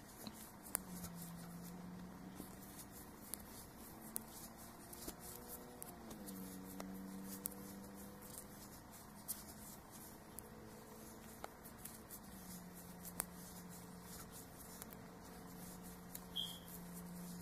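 Faint handling sounds of crocheting by hand: small scattered clicks and light rubbing of a fine 1.65 mm crochet hook working black cotton thread. Under them runs a low steady hum that shifts in pitch a few times.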